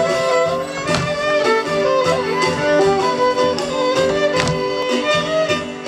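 Violin-led Cypriot traditional folk dance music playing continuously: a bowed fiddle melody of held and gliding notes over a steady accompaniment.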